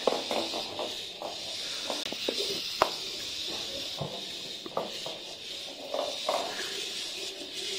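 Small battery-powered crawling cat toy running about on a wooden floor, clattering against things: a series of irregular sharp knocks over a faint steady hiss.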